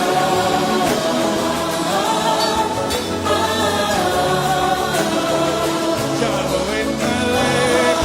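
Gospel song: several voices singing long held lines together over a band with a steady bass.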